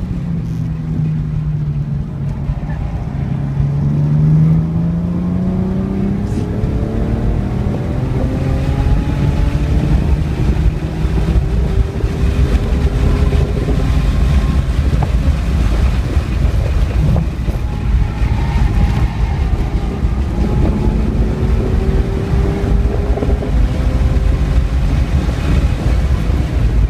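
BMW 335i's turbocharged inline-six heard from inside the cabin under hard driving, its engine note climbing in pitch through the gears several times and dropping back between pulls, over a steady rumble of road and wind noise.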